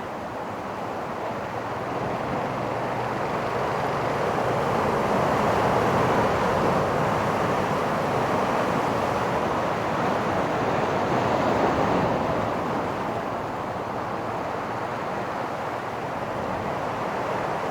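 Pacific surf breaking and washing over a sand-and-rock beach: a continuous rush of water that swells to a peak over several seconds and eases off again.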